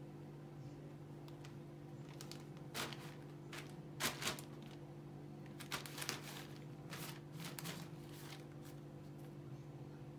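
Thin plastic shopping bags rustling and crinkling in short, irregular bursts as a tabby kitten noses and pushes into them, loudest about four seconds in, over a steady low hum.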